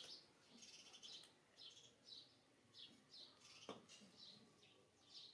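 Faint bird chirping, short high calls repeating about twice a second, with one sharp knock a little past the middle.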